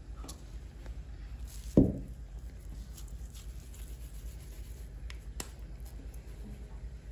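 Hands working crumbly şekerpare dough in a ceramic bowl: a few light clicks of handling, with one dull thump a little under two seconds in, over a steady low hum.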